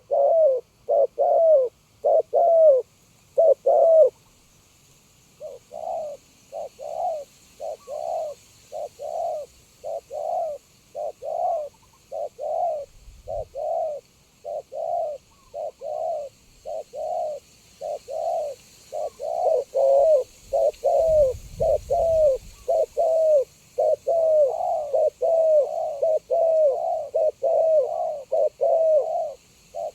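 Spotted doves cooing: a long run of short, repeated coos, about one or two a second, loudest in the first four seconds, with a pause just after that before the cooing resumes at varying loudness. A brief low rumble comes twice in the middle.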